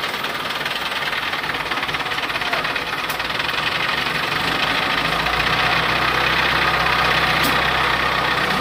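A large vehicle's engine running steadily, with its low hum growing stronger about halfway through.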